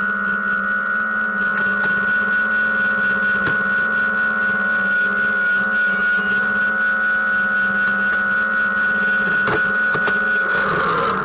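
Sliding panel table saw running steadily with its dust extraction while a veneered chipboard panel is fed through the blade; the tone shifts near the end as the cut finishes.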